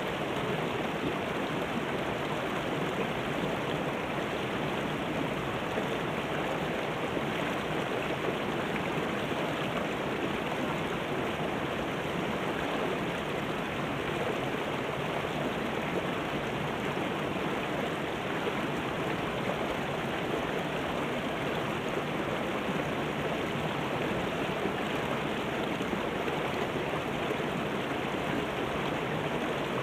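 Shallow rocky river flowing and splashing over boulders in small rapids: a steady, even rushing of water.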